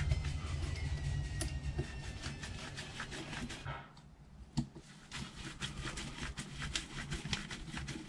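Hex screwdriver driving small screws into the new front differential casing of a 1/10 RC monster truck: light, irregular clicks and ticks of the tool and the parts being handled. A faint low hum under them stops about four seconds in.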